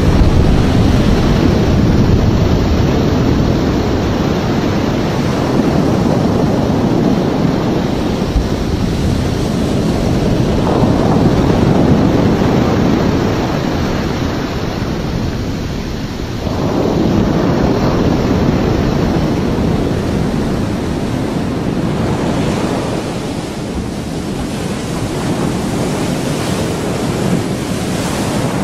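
Continuous deep roaring rumble, like heavy surf and wind, from the collapsing spray column and base surge of an underwater nuclear explosion. There are no distinct blasts. It swells and eases, dipping briefly about 16 seconds in and again around 23 seconds in.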